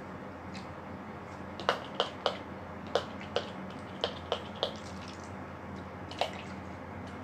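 Victoria's Secret perfume spray bottle spritzed in about nine short, sharp puffs, several in quick succession, starting a little under two seconds in and ending about six seconds in.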